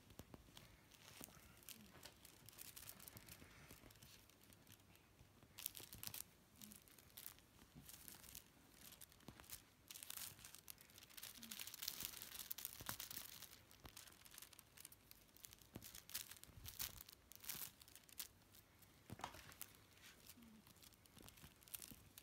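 Faint, irregular rustling, scratching and clicking of kittens' paws and claws scrambling and pouncing on a fleece blanket as they play, busiest about midway.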